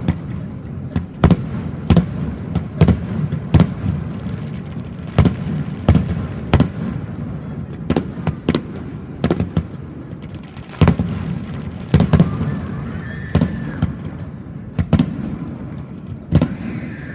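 Aerial fireworks shells bursting in a rapid, irregular series of bangs, one or two a second, over a continuous low rumble of echoing booms.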